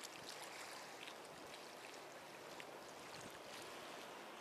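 Faint steady wash of harbour water, with a few small ticks.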